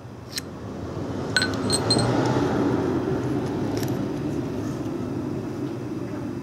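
A handful of light metal clinks as the nested socket rings of a multi-size ratchet wrench are handled. A low rumbling background noise swells up about a second in and stays, louder than the clinks.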